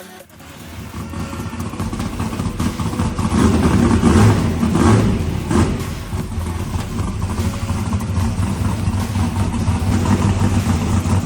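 A car engine running loudly and roughly, building up over the first few seconds, with three brief revs about four to six seconds in, then running on steadily.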